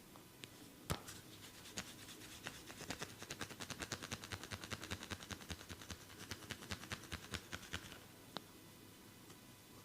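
A barber's hands slapping and snapping on bare skin during a massage: one sharp crack about a second in, then a fast run of sharp slaps, several a second, that stops abruptly, and a single pop near the end.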